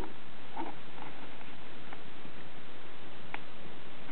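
A few faint, short ticks and taps of a small pin being worked through the holes of a homemade paper-and-cardboard rifle's stock, over a steady hiss.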